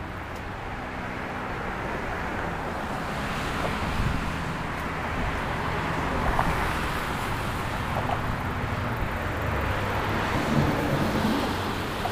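Steady outdoor rush of road traffic and wind, with low wind rumble buffeting the microphone.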